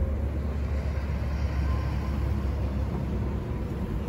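Steady low rumble with an even hiss over it and no distinct events.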